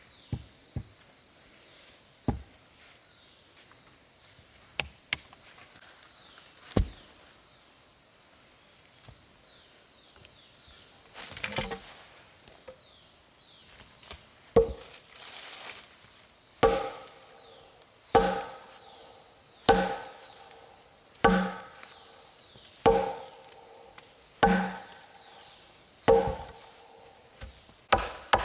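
Wood being chopped. A few scattered knocks come first, then from about halfway a steady run of strikes, roughly one every second and a half, each with a brief ringing tone.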